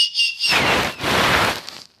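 Dog noises from a funny-dog video: a high, whistle-like whine for the first half second, then a rough, noisy sound lasting about a second and a half, with a short dip in the middle.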